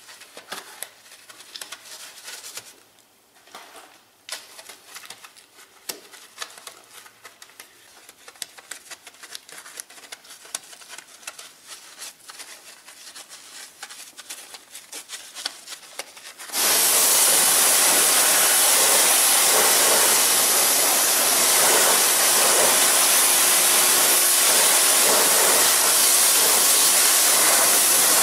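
A soft-bristled wheel brush scrubbing a soapy alloy wheel, its bristles rubbing and clicking against the spokes. About two-thirds of the way through, a pressure-washer jet starts suddenly, a loud steady hiss of spray rinsing the wheel.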